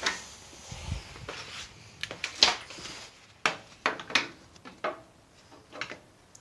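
A string of sharp, irregular clicks and knocks, several in a few seconds, from hard parts being handled and set down.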